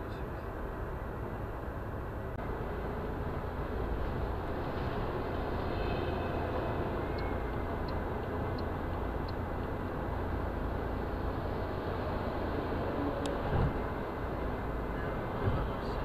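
Steady road and engine noise of a car at highway speed, heard from inside the cabin, with two brief thumps near the end.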